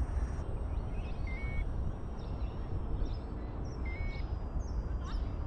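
Wind rumbling on the microphone, with the faint, steady high whine of the foam A-10 model's twin 30 mm brushed electric ducted fans in flight, slowly dropping in pitch. A short two-step electronic beep sounds twice.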